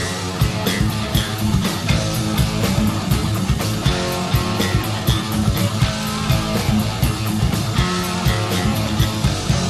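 Hard rock band music: electric guitar and bass over a steady, driving drum beat.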